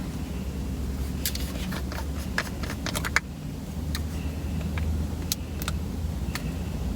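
Cosmetic packaging being handled and opened: a quick run of small plastic and cardboard clicks and taps, ending in a sharp click about three seconds in, then a few scattered clicks, over a steady low hum.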